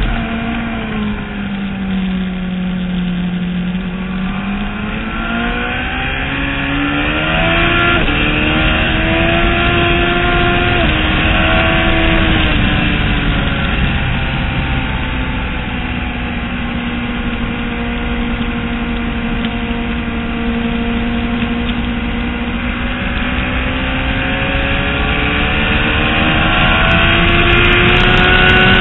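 Sport motorcycle engine at speed on a race track, heard from on board: the revs dip, climb, drop sharply once as the rider shifts up, hold steady for a long stretch, then rise again near the end. Wind noise runs under the engine throughout.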